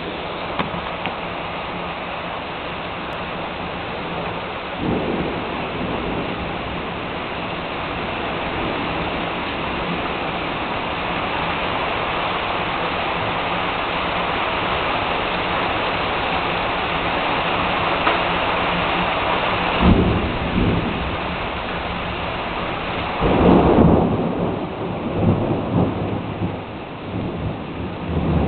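Heavy thunderstorm rain pouring steadily, with thunder: a low rumble about five seconds in, a sharp crack about two-thirds of the way through, and the loudest peal a few seconds later, rumbling on afterwards.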